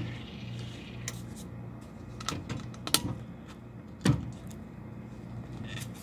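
Amana refrigerator freshly plugged back in after a control-panel replacement, giving a low hum that fades out about a second and a half in. Several sharp clicks and knocks come through it, the loudest about four seconds in.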